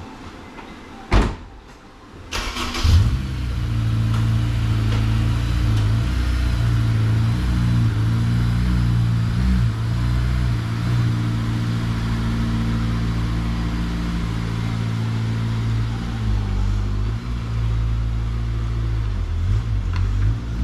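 A Honda S2000's four-cylinder engine: a sharp click about a second in, then the engine starts about a second later and runs steadily, with small changes in engine speed.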